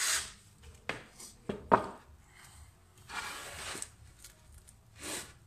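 Chipboard block and wooden board being handled on a workbench: a few sharp wooden knocks between one and two seconds in, and short rubbing, sliding noises as the pieces are moved into place.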